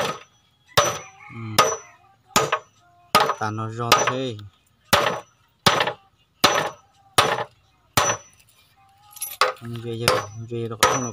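Steel claw hammer driving nails into a wooden slat laid on old planks. It strikes in a steady run of sharp blows, a little faster than one a second, some leaving a brief high ring.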